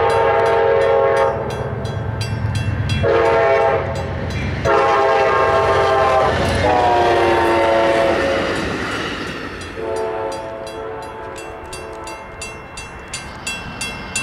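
GE Genesis diesel passenger locomotive's multi-chime air horn sounding for a grade crossing. A blast ends about a second in, then comes a short blast, then a long blast whose pitch drops as the locomotive passes, and a fainter blast later. Under the horn run the train's rumble and a crossing bell ringing steadily.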